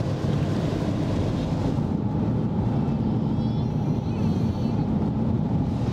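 Steady low rumble of a road vehicle's engine and tyres, heard from inside the cabin while driving.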